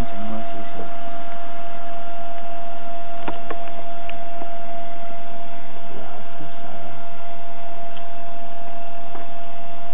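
Steady electrical hum, one unchanging tone over constant hiss, with a few faint clicks about three and four seconds in.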